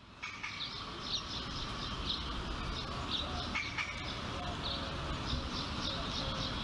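Birds chirping, many short quick calls over a steady background noise.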